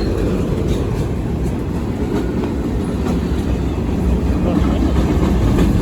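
Manifest freight train rolling past, a steady rumble of the freight cars' wheels on the rails.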